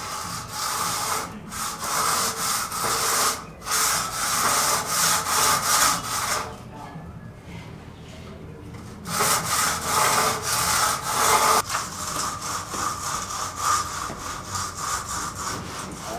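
Wood being cut with a hand saw: repeated back-and-forth saw strokes that stop for about two seconds midway, then start again.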